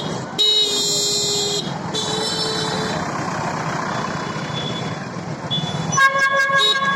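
Vehicle horn honking, one long honk and then a shorter one, over a steady engine rumble. A different-pitched horn sounds near the end.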